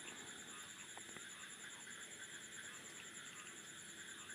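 Faint steady background hiss with a thin, high-pitched whine; no other sound.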